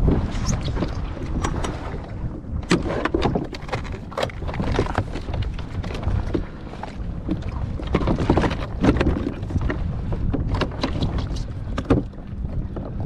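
Scattered knocks and clatter aboard a small boat over a steady low rumble.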